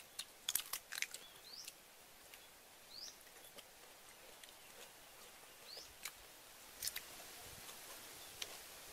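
Quiet, scattered clicks and smacks of people eating fish with their hands, with three short rising bird chirps along the way.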